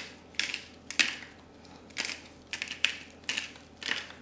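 Hand-twisted pepper mill grinding peppercorns: a series of short crunchy grinding bursts, about two a second and unevenly spaced, one for each twist.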